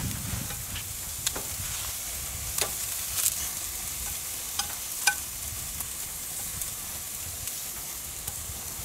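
Romaine lettuce halves and meat sizzling on a hot grill grate, a steady hiss. A few sharp clicks of metal tongs against the grate come as the lettuce is lifted off.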